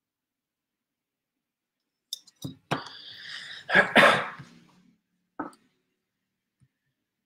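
A man coughing and clearing his throat, its loudest moment about four seconds in, after a few small clicks about two seconds in, with one short noise from him a little later.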